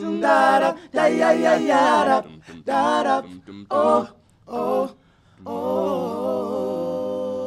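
Male a cappella vocal quartet singing: several short sung phrases with brief breaks, then one long held note from about five and a half seconds in.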